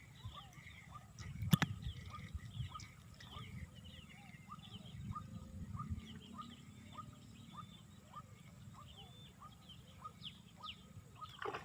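Wild birds chirping over and over in short calls, with a low rumble underneath and one sharp click about a second and a half in.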